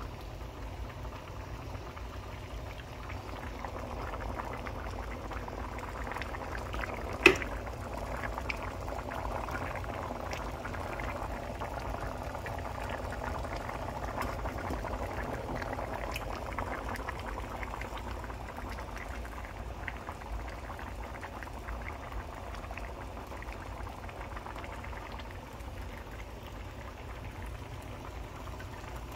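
Pots of food simmering on a stovetop: a steady bubbling full of small pops. There is one sharp knock about seven seconds in.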